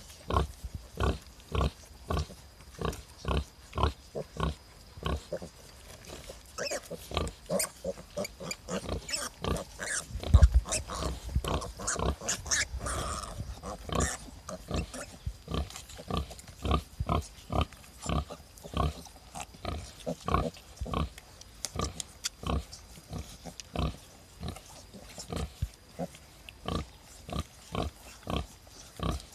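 A nursing sow grunting in a steady rhythm of short grunts, about two a second, as her piglets suckle. This is the regular nursing grunt a sow gives around milk let-down. One louder low thump comes about ten seconds in.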